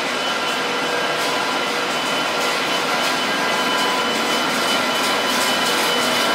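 Double-deck TGV high-speed train rolling slowly past in a station: a steady whir from the power car's blowers and traction equipment with a few humming tones. Light clicks of wheels on the rails come in during the second half.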